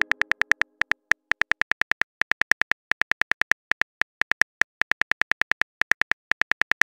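Chat-app keyboard typing sound effect: a fast run of short, identical electronic key clicks, about eight to ten a second, with a few brief pauses between runs.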